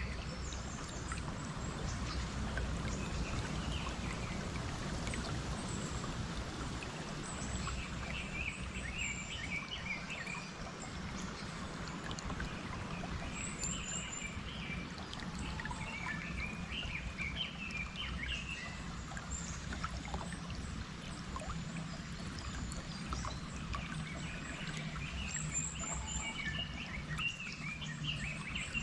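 Flowing stream water with birds singing over it: a steady water noise with repeated chirping phrases and a few high, thin calls.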